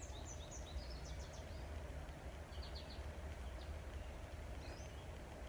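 Quiet room tone with a low hum and faint, scattered bird chirps.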